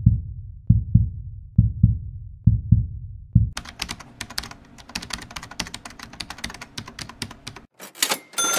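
Channel-intro sound effects. Paired low thuds come about once a second, then a rapid clatter of typing-like clicks runs for about four seconds while the title letters appear. Near the end a quick swish gives way to a ringing ding that fades.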